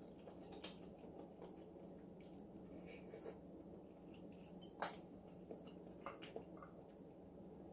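Faint eating sounds as crab is picked at and eaten: scattered soft clicks of shell and wet squishes, with one sharper click about five seconds in, over a low steady hum.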